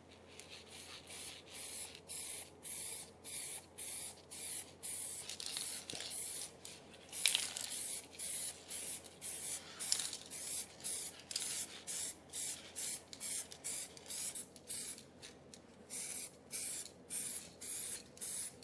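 Aerosol can of silver spray paint hissing in many short bursts, a few a second, with a couple of longer sprays partway through.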